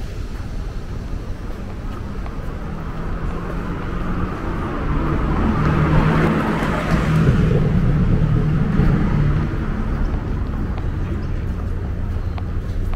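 A car driving past on the street: engine and tyre noise swell to a peak about six seconds in, then fade away, over a steady low rumble of street noise.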